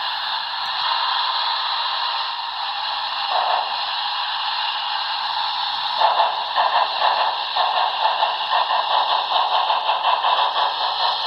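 Sound system of a Broadway Limited HO-scale Challenger model steam locomotive playing a steady steam hiss through its small onboard speaker, joined about six seconds in by a rapid rhythmic chuffing as the locomotive drives.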